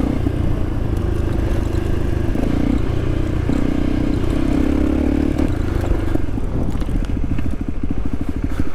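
Trail motorcycle engine running under way, with clatter and scraping from the bike over a rough track. Near the end the engine note changes to a fast, even pulsing.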